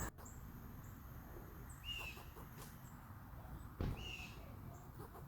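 Wild animal calls on a wooded trail: faint high chips repeating, with two louder harsh calls about two seconds in and again near four seconds.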